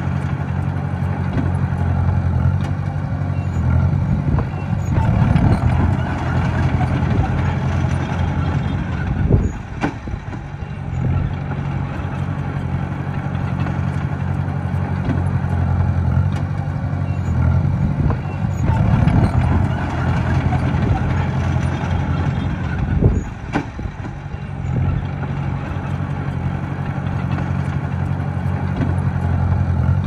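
Diesel engine of a small Komatsu bulldozer running steadily and working up under load twice. Each time, a few seconds later, there is one sharp clank and a brief drop in engine level.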